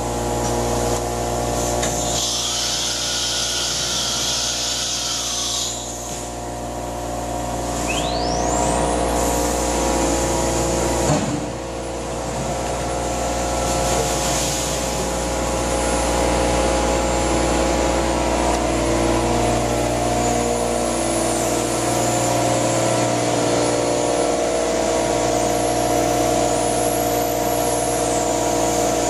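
Thermwood CNC router and its vacuum pump running with a steady hum. About two seconds in, a hiss of air lasts some four seconds during the automatic tool change. Around eight seconds in, the spindle whine rises steeply in pitch as it spins up, and then runs steadily.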